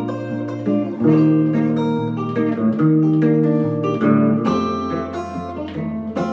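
Acoustic guitar playing chords with a moving bass line, an instrumental passage of music with no singing heard.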